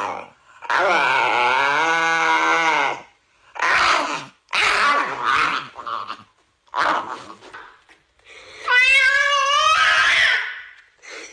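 A dog vocalizing in a string of drawn-out calls. The first is a long call whose pitch bends, followed by several shorter calls, then a higher, wavering howl-like call near the end.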